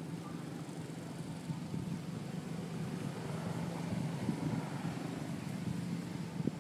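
A steady low hum, like a motor engine running, under outdoor background noise, with a short tick near the end.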